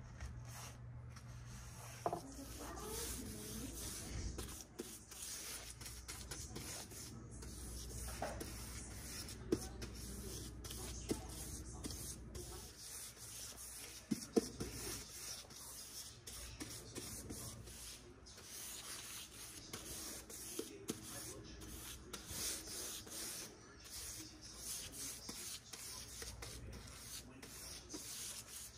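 Paintbrush swishing in repeated strokes, spreading paint over cabinet door panels, with a few light taps and knocks.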